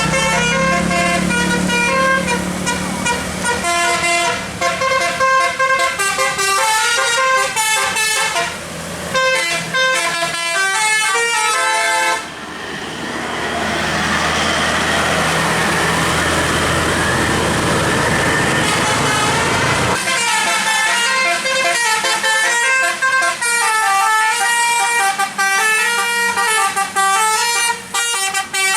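Tour bus 'telolet' musical air horn playing a tune of quick stepped notes. About twelve seconds in, the tune gives way to a loud steady rushing noise for roughly eight seconds, then the horn tune resumes.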